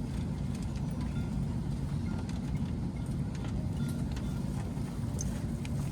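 Steady low rumble of cabin noise inside an Airbus A321neo airliner after landing, with a few faint clicks.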